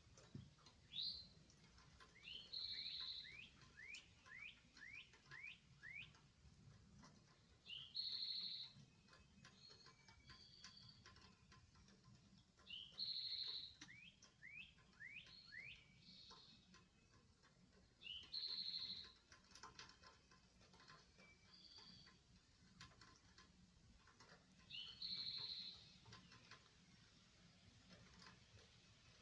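A songbird singing the same short phrase over and over, about every five seconds: a bright high note followed by a quick run of short downward-sliding notes.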